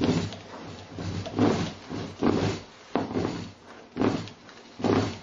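Rhythmic scraping and rubbing, a little more than one stroke a second, as copper magnet wire is wound by hand turn after turn onto a coil resting on a countertop.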